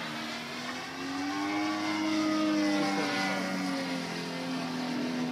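DLE 111 twin-cylinder two-stroke gasoline engine of a 35% MX2 RC aerobatic plane in flight, running steadily, its pitch and loudness rising to a peak about halfway through and then easing off.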